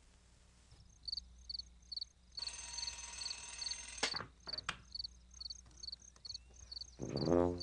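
Crickets chirping in a steady rhythm, about two and a half chirps a second, with a sustained pitched sound between about two and four seconds in and two sharp clicks just after. A loud pitched musical sound, the opening of the score, starts near the end.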